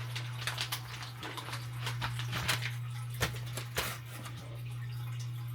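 Irregular light clicks and taps of things being handled, thickest in the first few seconds, over a steady low hum.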